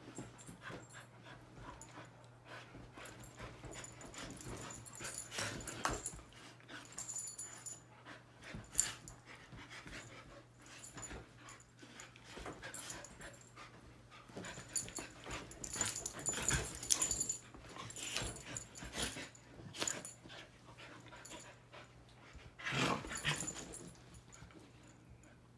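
Two dogs play-wrestling on a bed: growls and breathing mixed with scuffling on the bedding, in irregular bouts that come and go.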